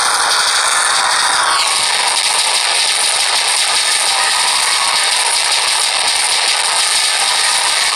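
Loud, dense, unbroken noise from a Scratch game's sound effects playing over one another; a faint high tone in it drops lower about a second and a half in.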